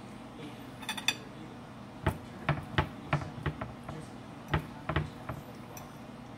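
Metal fork clinking and tapping against a ceramic plate while cutting through food, with a short ringing clink about a second in and then a run of about a dozen sharp taps.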